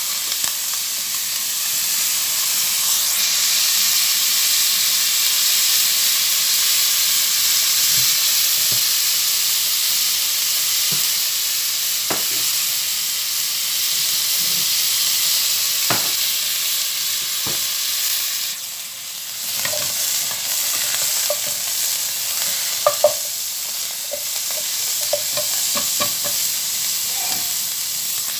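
Beef pieces sizzling in hot oil in a pot while being stirred, with occasional light knocks and scrapes of a silicone spatula against the pot. The sizzle drops briefly about two-thirds of the way through.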